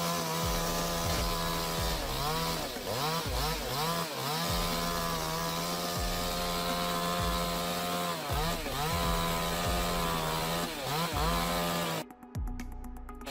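Chainsaw running at high revs, with the engine pitch dropping and climbing back several times as the throttle is eased and opened again. Near the end the sound turns duller.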